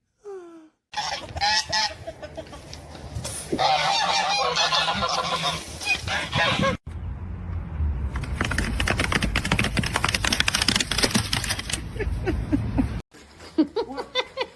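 Loud, repeated honking calls of a large bird, broken by sudden cuts between clips, with a stretch of dense rattling or flapping noise in the middle.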